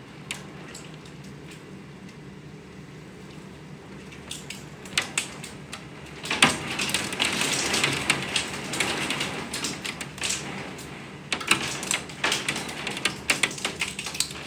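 Heavy rain mixed with hail pelting a window: a steady wash of rain with sharp ticks of hailstones striking the glass. It swells into a dense downpour about six seconds in, then eases to loud, separate hail ticks near the end.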